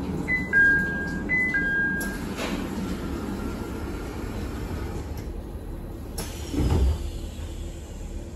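Inside an Abukuma Express AB900-series electric train: the car's steady low hum and running noise. A two-note descending chime sounds twice near the start, and a low thump comes about two-thirds of the way through.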